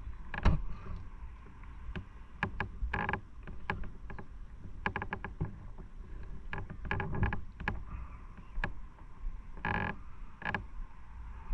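Small waves lapping and sloshing irregularly against concrete tetrapods at the water's edge, in many short, uneven splashes over a low rumble.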